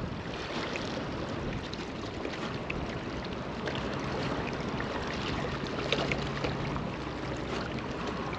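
Wind on the microphone and small waves lapping against shoreline rocks, with a few light clicks and a faint low hum for a few seconds in the middle.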